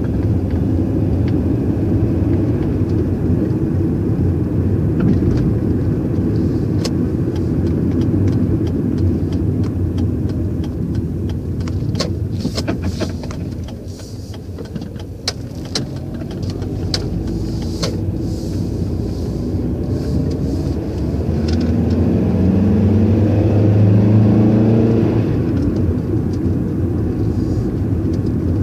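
Car engine and road noise heard from inside the cabin while driving: a steady low rumble that eases off around the middle, with a scatter of light clicks, then the engine note rises and grows louder a little past twenty seconds in as the car accelerates.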